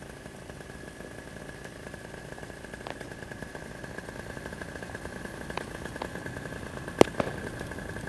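Paramotor engine idling with a thin steady whine, while fireworks bursting below give scattered sharp pops, the loudest about seven seconds in.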